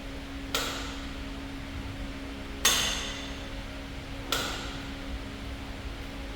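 Three sharp metallic knocks, roughly two seconds apart, each ringing briefly; the middle one is the loudest. A steady low hum runs underneath.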